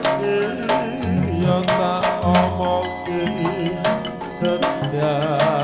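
Javanese gamelan (karawitan) playing tayub dance music: regular percussion strokes over sustained ringing tones, with a wavering melodic line above.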